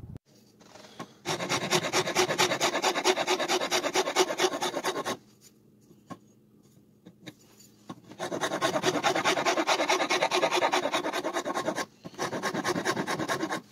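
A metal file rasping a pallet-wood hatchet handle with rapid back-and-forth strokes. The strokes come in three bouts: the first starts about a second in, a second follows after a pause of about three seconds, and a short third comes near the end.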